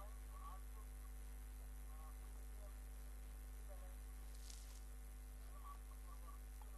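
Steady low electrical mains hum, with faint scattered chirps and a brief hiss about four and a half seconds in.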